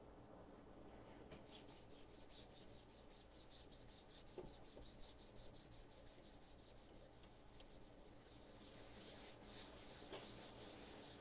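Faint, quick back-and-forth strokes of a 320-grit sanding block on a filler-primed 3D-printed part, sanding against the grain to knock down print lines. The strokes run at about five a second and start about a second and a half in.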